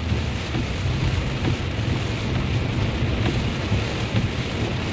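Heavy rain drumming steadily on a moving car's windshield and body, heard from inside the cabin. Under it runs a low steady rumble of tyres on the flooded road.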